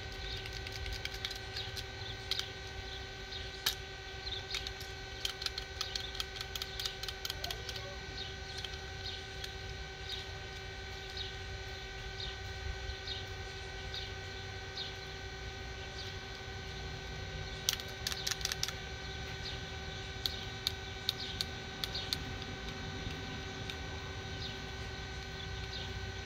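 Runs of small, quick plastic clicks from a fidget cube being pressed and flicked in the hands, a few seconds in and again in a short flurry past the middle, over a steady hum and scattered short high chirps.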